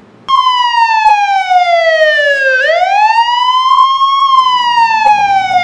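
Siren-like wailing sound effect: one smooth tone that starts just after a brief silence, slides slowly down, swoops back up about two and a half seconds in, then slides down again.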